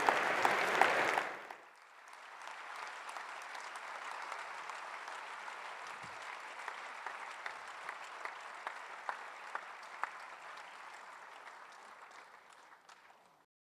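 Large audience applauding. The clapping is loud for about the first second and a half, drops sharply, then carries on steadily and cuts off abruptly near the end.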